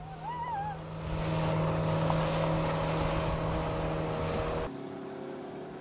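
MacGregor 26M's outboard motor running steadily under power, with a rush of water and wind. There is a brief wavering high tone near the start, and about three-quarters of the way through the engine sound cuts off to a quieter background.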